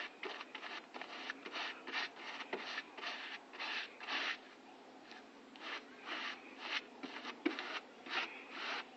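Short, irregular scraping or rubbing strokes of a hand tool on a surface, two or three a second, with a pause of about a second midway.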